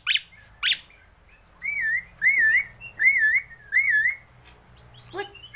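Javan myna whistling: two short sharp notes at the start, then four alike wavy whistles, each rising and falling, about two seconds in, and another sharp note near the end.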